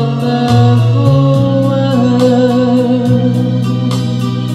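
Live pop performance: a woman sings long held notes with vibrato into a microphone over Korg keyboard accompaniment. Bass notes change under her, and a light, steady beat runs through it.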